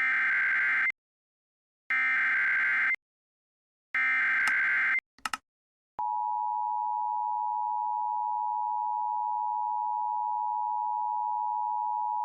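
Emergency Alert System activation over FM radio, signalling a tornado warning. It opens with three one-second bursts of SAME header data screech, about a second apart, then a short blip. About six seconds in, the steady two-tone EAS attention signal begins and holds.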